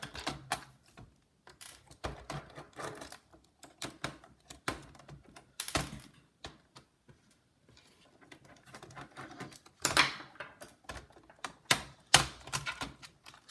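Irregular plastic clicks and taps from a Dell Inspiron 1545 laptop's keyboard being pried out and handled, with a few louder clicks in the middle and near the end.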